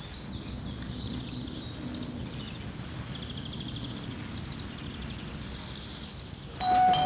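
Outdoor woodland ambience: small birds chirping and trilling over a steady low rumble. Near the end a sudden, louder sound with a held tone cuts in.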